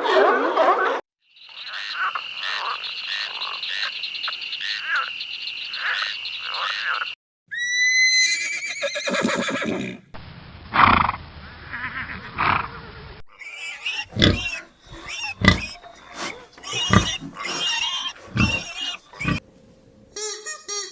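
Farm animal sounds in several short clips, one after another, each cut off abruptly before the next begins.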